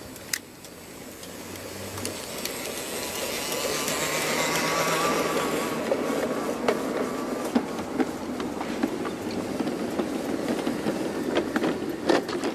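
Garden-railway model freight train rolling past on the track, its wagon wheels clicking over rail joints. The rolling noise grows over the first few seconds as the train comes close, then stays up as the wagons go by.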